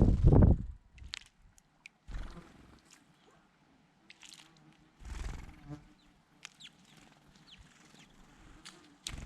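Small birds giving short, scattered chirps and calls, over a loud low rumbling burst at the very start and a shorter one about five seconds in.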